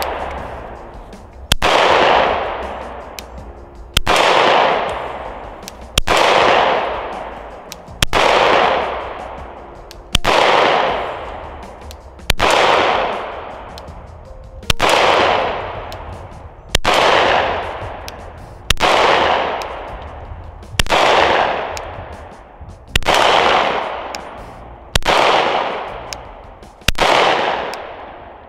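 Gen 5 Glock 17 9mm pistol fired with slow, deliberate single shots, about thirteen of them roughly two seconds apart. Each shot has a long echo that fades away before the next.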